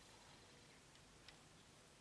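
Near silence: room tone with a couple of faint light clicks of a plastic model-kit sprue being handled.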